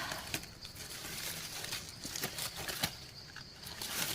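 Light rustling with scattered small clicks and snaps, as leaf litter and twigs are handled and stepped on while mushrooms are picked.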